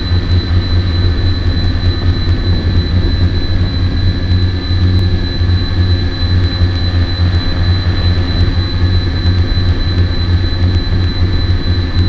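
Quadcopter drone's electric motors and propellers running steadily: a loud, even hum with a thin high whine above it.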